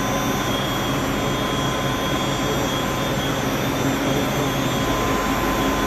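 Chilled water pumps' electric motors running in a pump room: a loud, steady machine whir with a few steady tones in it.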